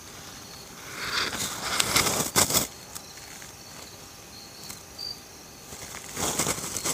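Insects chirping steadily, with bursts of rustling noise from about one to nearly three seconds in and again near the end.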